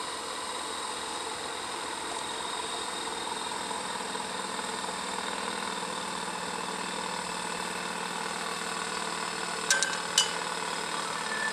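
Engine of a rail maintenance work platform running steadily at idle, with a few sharp metal clinks near the end as tools and fittings on the overhead contact line are handled.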